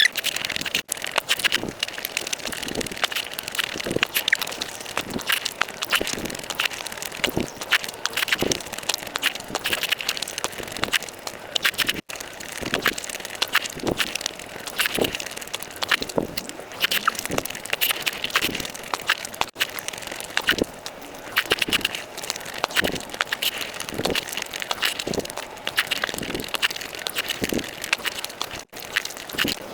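Close-miked eating of noodles and eggs: continuous wet chewing and lip-smacking with quick clicking mouth sounds. It breaks off abruptly for an instant a few times.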